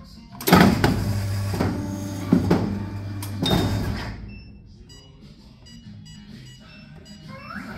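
Rynak R6710 paper guillotine running a cutting cycle: a loud clunk as it starts about half a second in, then a steady machine hum with two more clunks as the clamp and blade go down and come back up. It drops to a much quieter sound after about four seconds.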